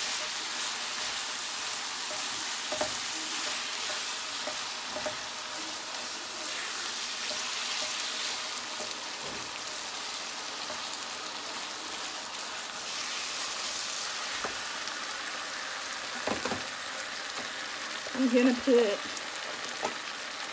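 Ground beef mixture sizzling in a frying pan while it is stirred, the spatula knocking and scraping against the pan now and then. A brief louder pitched sound comes near the end.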